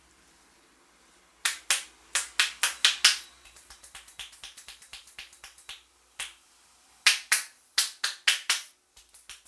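Hand percussion of an Indian head massage: sharp slaps and claps of hands on the head. They come in two quick runs of loud strikes, about three to four a second, with lighter, faster taps in between.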